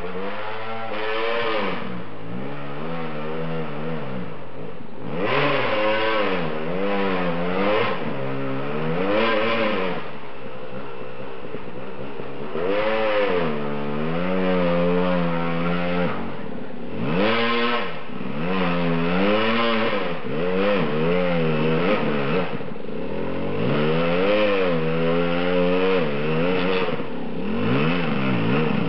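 Dirt bike engine revving up and down over and over as the rider works the throttle and gears over rough ground. It grows louder as the bike draws closer.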